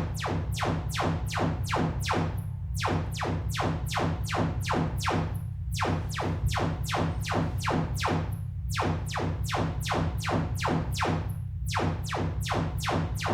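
Sonos Era 300 speaker playing its Trueplay room-calibration test signal: rapid falling chirps, about three or four a second, in runs broken by short pauses every few seconds, over a steady low drone. The speaker's built-in microphones listen to this signal to tune its sound to the room.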